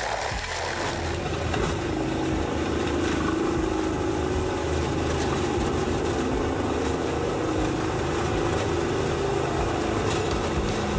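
A Peterson 5710 horizontal grinder's heavy diesel engine running steadily under load, with no pauses or changes in pitch. The first second holds the tail of a different machine's sound.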